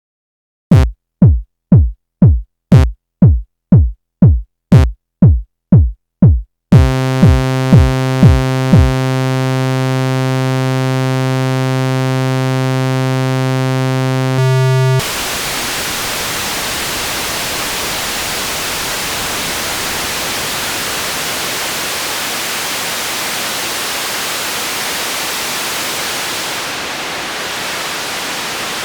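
Korg iMS-20 synthesizer building a helicopter sound effect from its parts. First comes a repeating thump that drops in pitch, about two a second. A steady buzzing tone joins it, and the thumps stop a couple of seconds later. The tone then cuts off abruptly, leaving a steady hiss of white noise.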